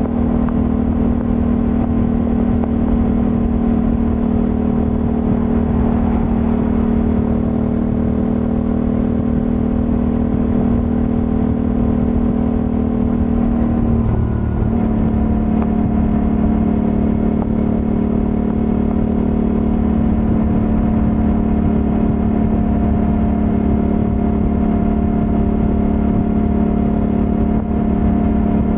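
Honda Africa Twin 1100's parallel-twin engine running steadily at motorway cruising speed, heard from the rider's position. About halfway through the engine note briefly dips, then settles back to a steady drone.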